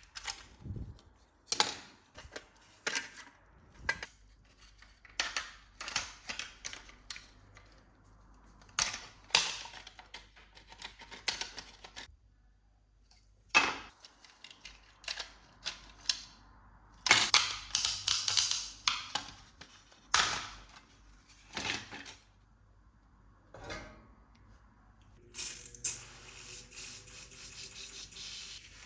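Irregular clicks, taps and short scrapes of small hard parts being handled and worked on a model car. A steady hiss starts near the end.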